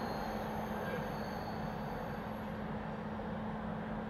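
Freight train running away into the distance: a steady low rumble with a low hum, and a faint high whine that dies away about halfway through.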